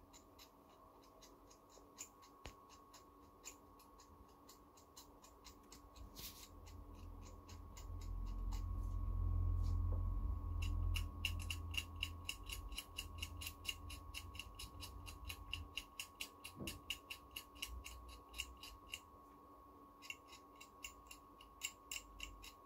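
A small blade scraping a phone circuit board by hand, giving faint scratchy ticks that settle into quick rhythmic strokes of about four a second. A low rumble of handling comes about a third of the way in.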